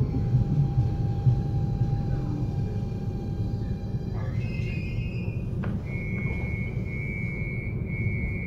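Copenhagen S-tog Litra SA electric commuter train coming to a stop: the Siemens GTO-VVVF inverter's whine falls slightly in pitch over the low running rumble and cuts out as the train halts, about four seconds in. A click follows, then a high tone sounds in three stretches near the end.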